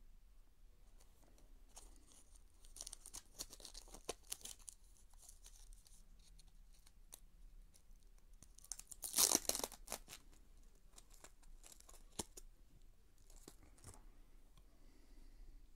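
Thin clear plastic packaging of a SanDisk microSD card crinkling and tearing as it is opened by hand. It comes in short crackly bursts, the loudest tear about nine seconds in, with a few small clicks after it.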